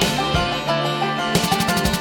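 Background music: a country-style tune on plucked strings, with a quick run of picked notes near the end.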